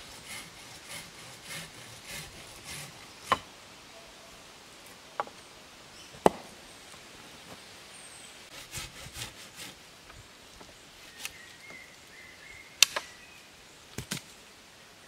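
Wooden poles knocking and rubbing as they are handled on a stick platform: about half a dozen sharp, separate knocks spread out, with faint scraping between.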